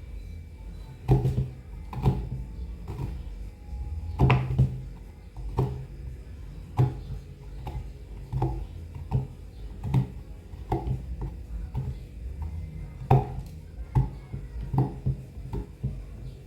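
Knife chopping a bar of chocolate on a chopping board: an uneven series of sharp knocks, about one or two a second.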